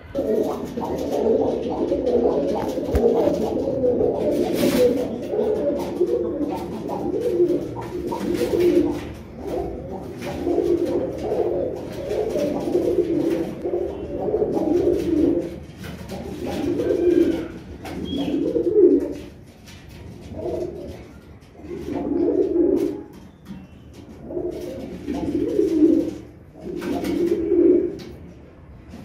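Several domestic pigeons cooing in a loft. The low coos overlap almost without a break at first, then thin out to separate coos every second or two in the second half.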